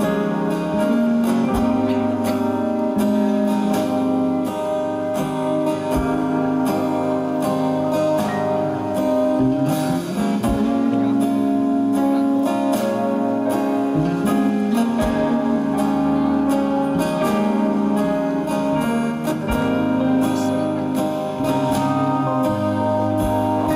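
Band music with a strummed acoustic guitar to the fore, played through a passage without lead singing.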